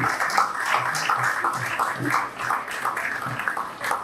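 Audience applauding, the clapping easing off near the end.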